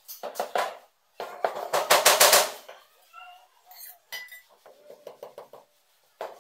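Mallet tapping a large ceramic floor tile to bed it into the mortar: a quick run of sharp taps about a second in, the loudest part, then lighter scattered taps.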